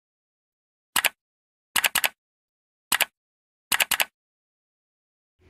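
Computer mouse clicks: four quick bursts of two or three sharp clicks each, about a second apart, with dead silence between them.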